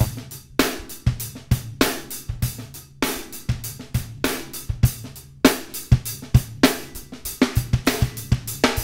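A recorded drum kit beat playing in a steady, even rhythm, run through a McDSP MC2000 multiband compressor whose attack times are being turned down short. The compression brings out aggressive upper mids, independent of the low end.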